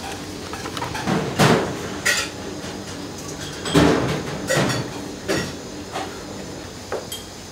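Plastic cling film crackling in a series of short bursts as it is stretched and smoothed down over a stainless steel tray.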